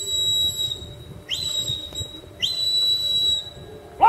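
Sheepdog handler's whistle commands to a working herding dog: the end of one long whistle, then two more, each sweeping quickly up to a high, steady pitch and held for about a second.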